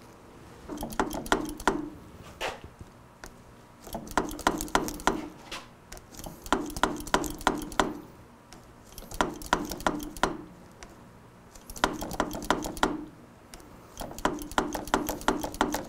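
Front brake lever of a 2005 Suzuki GSX-R750 pumped in quick bursts, clicking and clacking several times per burst, with a burst every couple of seconds. The lever is being pumped without building any pressure, which the owner takes as a sign that the master cylinder is faulty.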